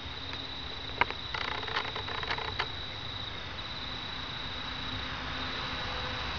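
Night insects, likely crickets, keep up a steady high-pitched trill, with a few sharp clicks in the first half. A low rushing noise slowly builds near the end.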